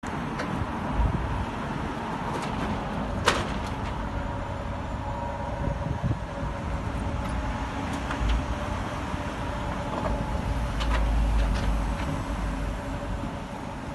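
Motorised steel roller shutter rolling up. A steady motor hum runs under the rattle of the slats as they wind onto the drum, with a few sharp clicks, the loudest about three seconds in.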